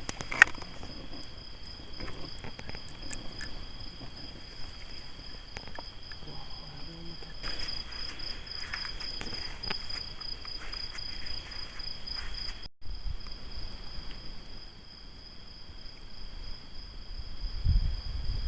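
Crickets trilling steadily at night, with campfire wood crackling and giving occasional sharp pops. The sound drops out for an instant about two-thirds through.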